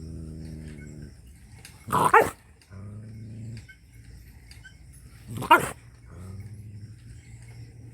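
A dog making low, drawn-out growls, broken twice by a single loud bark, about two seconds in and again about five and a half seconds in.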